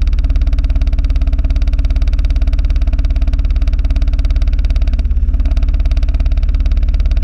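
Small motorcycle engine running at a steady speed, a fast even pulse of firing strokes picked up through a camera clipped to its rear-view mirror. A slight change in the sound comes about five seconds in.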